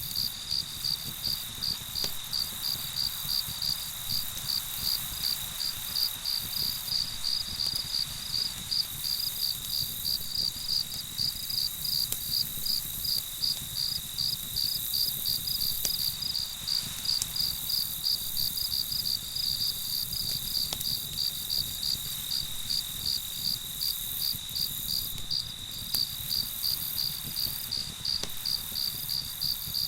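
Crickets chirping in a fast, even rhythm over a steady high insect trill, with a few faint clicks.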